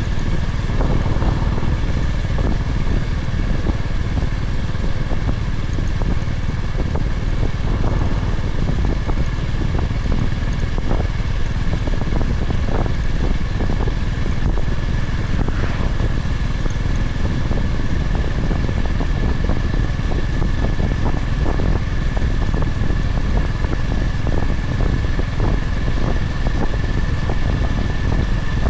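Honda GB350's single-cylinder engine running steadily while the motorcycle is ridden, with wind noise over the microphone.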